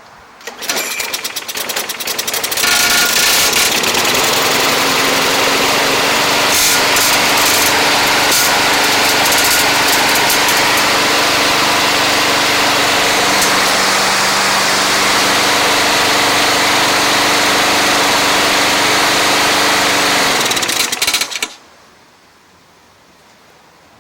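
Craftsman walk-behind lawn mower's small single-cylinder engine started by hand, catching after a couple of seconds of sputtering and then running steadily and loud, with its new blade fitted, before shutting off and winding down near the end.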